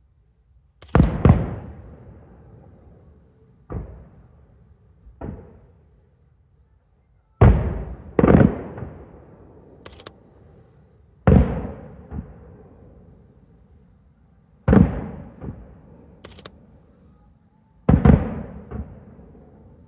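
Aerial firework shells bursting: about a dozen loud booms, often in close pairs every three to four seconds, each trailing off in a long rolling echo, with a few sharp cracks between them.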